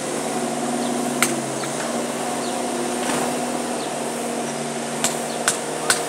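Bobcat skid-steer loader's diesel engine running steadily as the machine works, its pitch dipping slightly about two seconds in. A few sharp knocks are heard: one about a second in and three in quick succession near the end.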